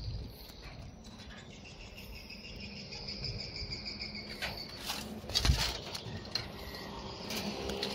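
Insects chirping in a steady high trill, with a few short knocks and one louder thump about five and a half seconds in.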